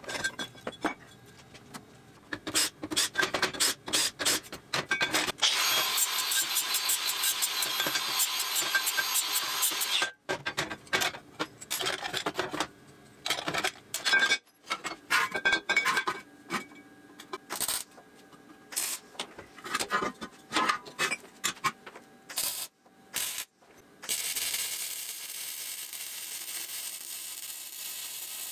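Metalworking sounds: steel parts knocking and clinking as they are handled, with several seconds of continuous scraping in the first third. Near the end a MIG welder's steady frying hiss takes over.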